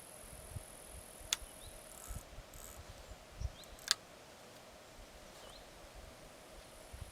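Quiet outdoor ambience: a steady high insect-like hiss that drops out for a few seconds in the middle, a few faint short chirps, and two sharp clicks, the second about four seconds in and the loudest.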